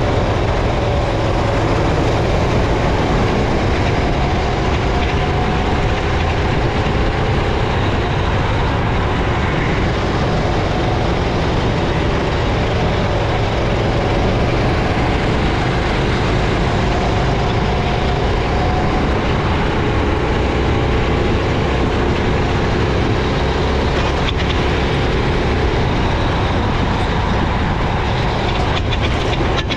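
Racing kart engine at speed, its pitch slowly rising and falling as the kart accelerates and slows, under a loud steady rush of noise on the wet track.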